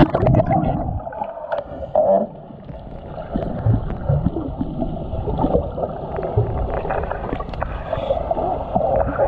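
Muffled underwater sound in a swimming pool: a splash as it goes under at the start, then dull gurgling, low rumbling and scattered soft knocks while a capsized kayaker hangs upside down and slips out of the upturned kayak.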